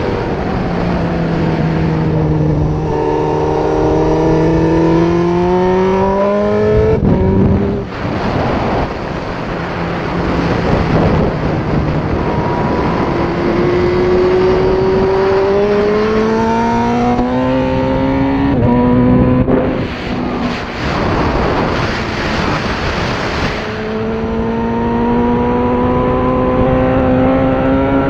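Suzuki GSX-R1000 K6's inline-four engine under hard acceleration. The pitch climbs in long rising sweeps, with a couple of gear changes along the way. Heavy wind rush from the helmet-mounted camera swamps the engine for a few seconds around the middle.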